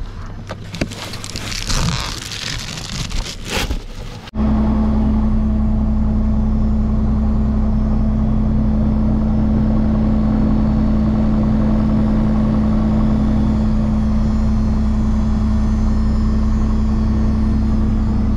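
Rustling and knocks for about four seconds, then suddenly the steady drone of the Piper Malibu's engine and propeller running, heard from inside the cabin, with one strong steady tone over a low rumble.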